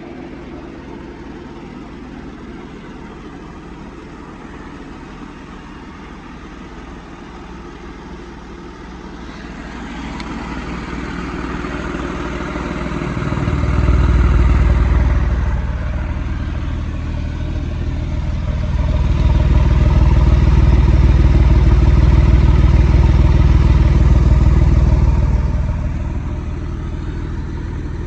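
Porsche 996 Carrera 4S's 3.6-litre M96 flat-six idling, then revved up twice, once briefly about midway and once held for several seconds near the end, before settling back to idle. It runs without the ticking that the owner put down to a sticky hydraulic lifter.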